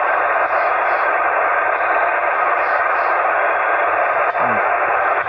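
Ham radio transceiver on a voice (single-sideband) frequency, giving a steady hiss of band noise and static through its speaker with no station readable. There is a faint falling tone about four seconds in. The noise floor is really high.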